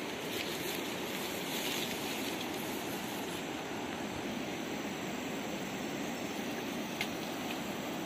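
Steady outdoor rushing noise, with a single faint tick about seven seconds in.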